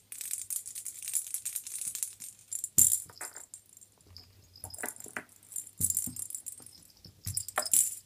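Small bells jingling and rattling in irregular shakes and bursts, starting suddenly and going on throughout, with a few louder jangles about three seconds in and again near the end. This fits a belled cat toy being batted or shaken during play.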